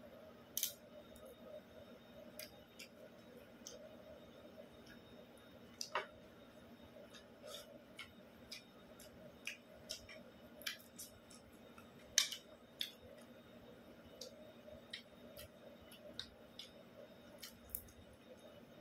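Eating by hand: scattered small clicks and smacks of chewing and of fingers picking fried tilapia off a plate, irregular and close to the microphone, over a faint steady hum.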